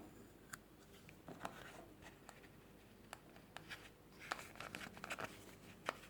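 An adhesive sticker being picked at and peeled off a Zippo lighter by fingernail: faint, scattered ticks and scratches, with a short run of scratchy peeling about four seconds in.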